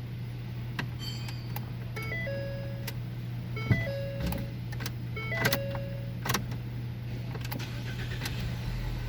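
Car engine idling steadily at a raised idle after a throttle body cleaning and reset, running without a misfire. A short stepped electronic jingle repeats over it several times, and a few sharp clicks sound.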